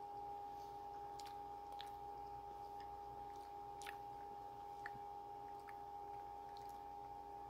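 Faint chewing with small mouth clicks and squishes from a person eating pizza, over a steady low hum.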